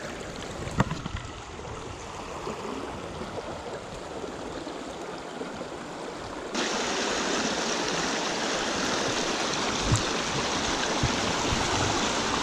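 Small creek running over rocks, a steady rush of water that jumps suddenly louder about halfway through.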